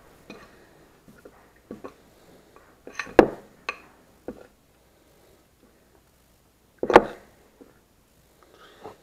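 A spoon knocking and clinking against a bowl while flour-and-beer batter is mixed, in scattered strokes with two louder knocks about three seconds in and again about seven seconds in.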